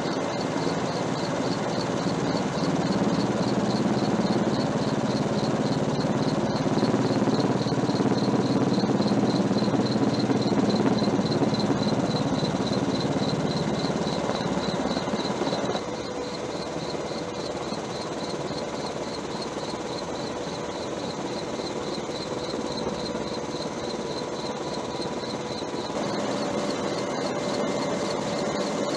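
Steady engine and rotor drone of a helicopter, heard from aboard, with a fast even pulsing whine over a low rumble. It drops suddenly in level about halfway through and comes back up near the end.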